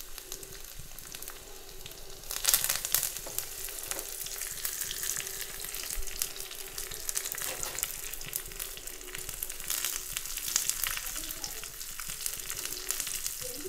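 Garlic, mustard seeds and urad dal frying in hot oil in a small iron tempering pan: a steady sizzle with fine crackling. About two seconds in it grows louder and denser as fresh leaves are dropped into the oil, and then it settles back as they are stirred.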